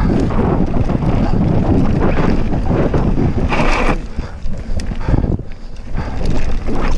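Wind buffeting the microphone over the rumble and rattle of a Cube Stereo mountain bike's tyres and frame running fast down a dirt trail, easing briefly about four and five and a half seconds in.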